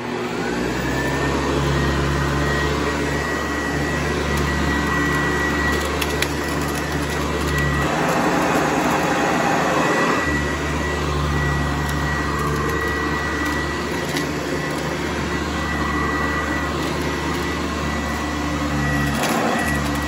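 Hoover Convertible U4101 upright vacuum cleaner running on carpet: its motor winds up to a steady high whine in the first second, then runs on steadily. The sound turns brighter and more rushing for about two seconds, around eight seconds in.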